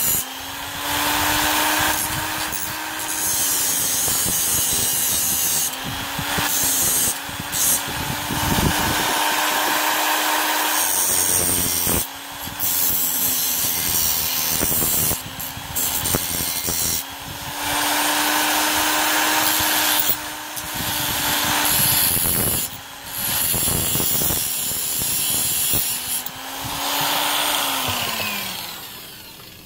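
Handheld angle grinder cutting a thin perforated metal strip: a steady motor whine under a loud grinding hiss, in several long passes with a couple of short breaks. Near the end the motor winds down, its pitch falling.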